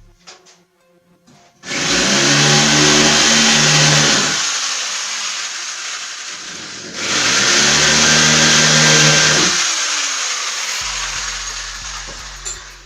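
Handheld electric power tool run in two bursts of about three seconds each, its motor hum under a loud hiss of working material, each burst starting sharply and tailing off.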